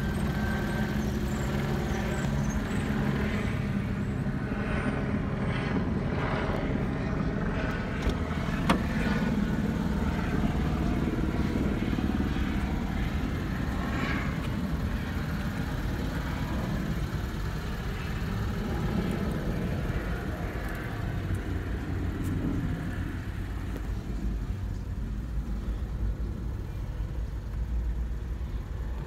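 2009 Lexus IS250's 2.5-litre V6 idling steadily, with a single click about nine seconds in.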